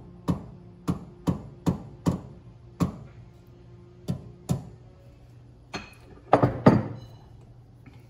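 A soft-faced hammer with a yellow face taps lightly on the steel of a mini lathe's tailstock, about eight separate taps in the first four and a half seconds. A few louder knocks follow about two-thirds of the way through. The taps nudge the tailstock sideways to centre it on the spindle.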